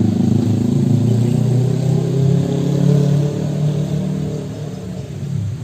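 Diesel locomotive engine running during a shunting move, a steady low engine note that swells about three seconds in and then fades.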